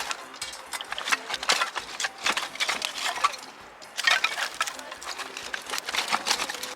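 Irregular clicking, clinking and rustling of cooking gear and ingredients being handled, with louder clusters of clatter about a second and a half in and again from about four seconds.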